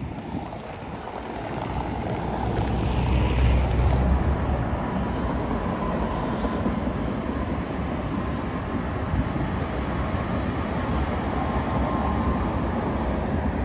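Street traffic with trams running past: a deep rumble that builds over the first few seconds, then a steady rolling noise with a faint thin whine.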